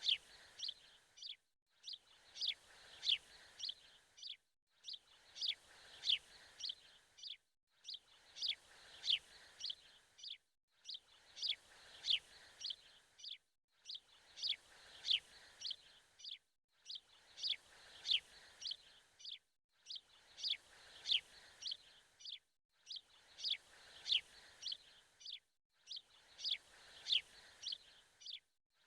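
A looped recording of birds chirping: the same phrase of quick, high chirps, about three seconds long, repeats over and over, each time broken by a brief gap of silence.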